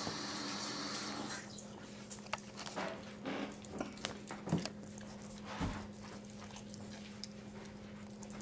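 Wet licking and slurping from a Bichon Frise mother licking her newborn puppy clean, with scattered small clicks and ticks and a steady low hum underneath.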